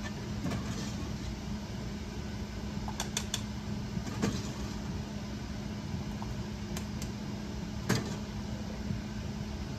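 A steady hum with a low held tone, with scattered light clinks of a metal ladle against a pot and glass jars as hot jelly is ladled into canning jars.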